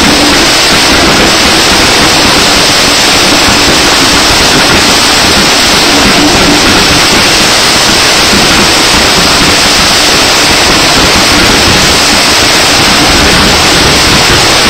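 Several Category 3 firework fountains spraying sparks together: a loud, steady hissing rush with no separate bangs.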